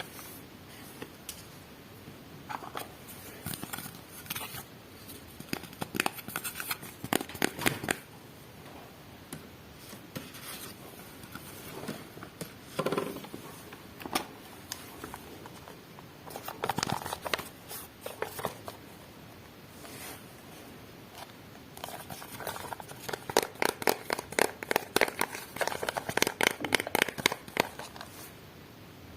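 Unboxing sounds: miniature plastic toy pieces and their packaging being handled, cut and opened. Irregular bursts of sharp clicks and rustles, with a long run of rapid clicking near the end.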